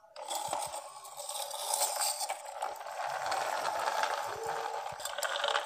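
Plastic toy truck's wheels rolling and scraping across a marble floor as the truck is pushed along, a steady rolling noise.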